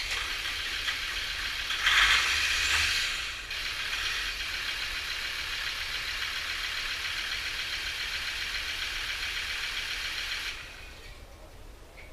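Land Rover Defender Td5 five-cylinder diesel engine running after being started, louder for about a second and a half around two seconds in, then running steadily until it is switched off near the end. This is the test of the starter motor after its contacts were renewed.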